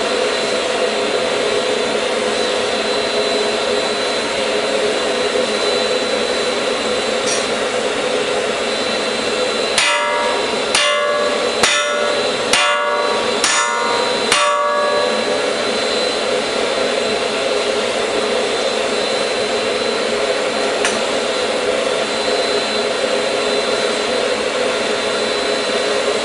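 Six hammer blows on a steel bar set in a forged-lattice jig, about a second apart, each ringing briefly. They fall over the steady rushing noise of the running forge.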